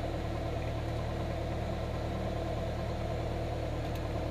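Piston engine of a single-engine light aircraft running steadily, heard inside the cockpit as an even drone.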